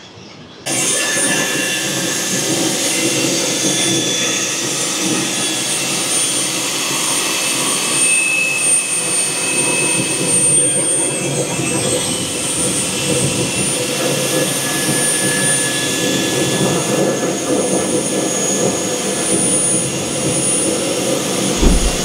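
Airbus A320 air-conditioning pack running on APU bleed air, heard close up in the pack bay: a loud, steady rush of air with thin high whines over it. The ducts are pressurised for a leak check of the newly replaced bypass valve. The sound starts abruptly about half a second in.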